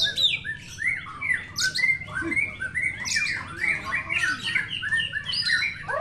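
Several caged oriental magpie-robins (kacer) singing over one another, a dense, unbroken tangle of fast, varied whistles and chirps.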